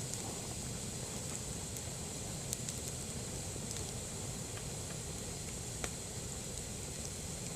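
Campfire with bamboo stalks burning: a steady hiss over a low rumble, with a couple of faint crackles about two and a half and six seconds in.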